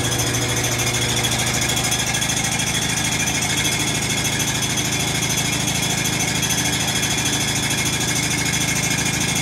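Samsung WA45H7000AW top-load washing machine in its spin cycle, making a steady, rapid mechanical rattling hum. The machine is level and the load balanced, and no error code shows, so the noise is not from an unbalanced load; its cause is unknown to the owner.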